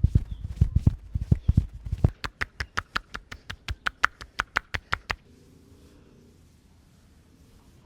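Rhythmic percussive hand massage: quick slapping strokes of the masseur's hands on the body, dull thuds at first, then from about two seconds in a run of sharper clapping strikes at about six a second that stops a little after five seconds in.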